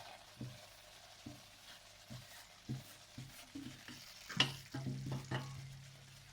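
A spatula stirring and scraping ground cashew into sugar syrup in a pan over a low flame: faint irregular scrapes and taps about every half second, with one louder knock about four and a half seconds in.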